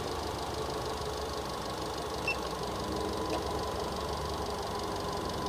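Nissan Grand Livina's engine idling steadily, with a faint short beep about two seconds in.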